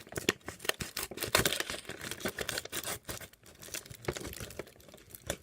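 Parcel being torn open by hand: a quick run of crinkling, crackling and tearing of the packaging, busiest over the first few seconds and then thinning out.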